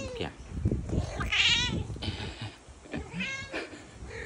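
Tabby cat meowing twice: a louder meow about a second and a half in, and a shorter one past the three-second mark.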